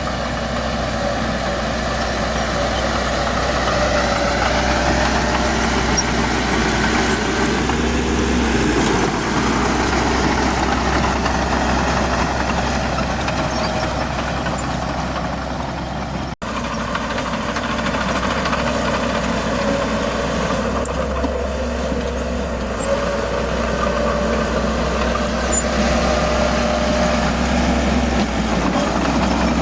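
Heavy diesel earthmoving engines running steadily, the engine note swelling and easing under changing load. The sound drops out for an instant about sixteen seconds in.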